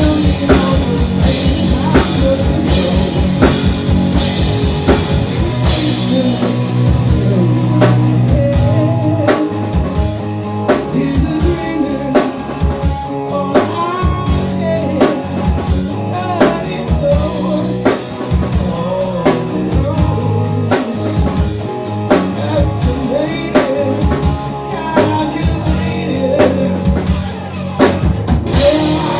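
Live rock band playing a song, with drum kit and guitars keeping a steady beat.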